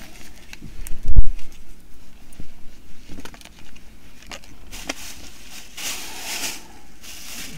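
Clothes and shopping packaging being handled: rustling and small clicks, with one loud dull thump about a second in and longer rustles near the end.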